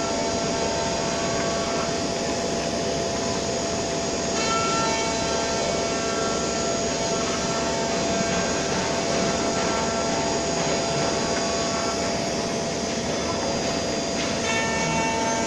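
Machine tool milling a wooden pattern: a steady motor whine over a dense cutting noise, with higher tones that shift as the cut goes on.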